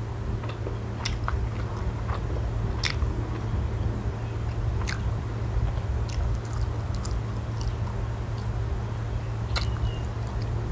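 A person chewing and biting food close to the microphone, with a few sharp crunches, over a steady low hum.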